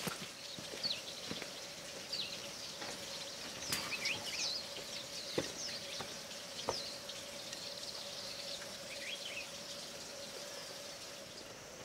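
Outdoor ambience of small birds chirping on and off, over a steady faint hum and a few soft knocks.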